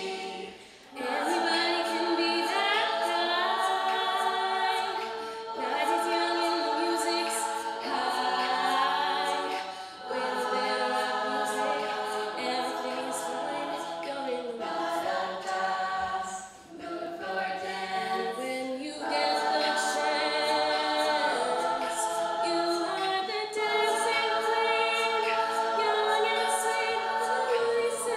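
Women's a cappella group singing in harmony: a soloist at a microphone over the others' sustained backing chords.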